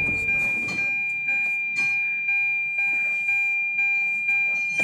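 Tata Harrier's dashboard warning chime with the engine switched off: a clear electronic tone repeating about twice a second, each stroke fading before the next.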